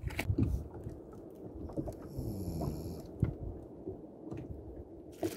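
Microphone handling noise: a low rubbing rumble with several soft knocks and one sharper knock near the end, as the recording phone or camera is moved and set down among gear.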